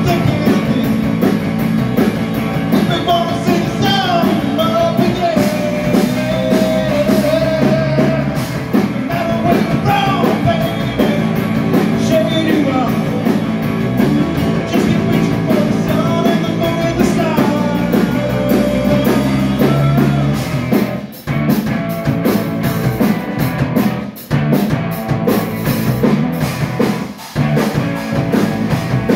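Live rock band playing loud: electric bass and drum kit with a wavering melody line over them. In the last several seconds the music cuts out briefly three times, in short stops.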